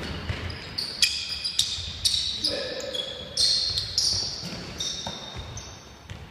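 Basketball being played on a hardwood gym floor: a quick run of sharp, high sneaker squeaks as players cut and stop, over the thud of the ball bouncing.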